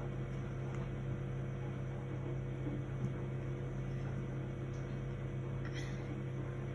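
Steady low electrical hum with a few faint soft taps.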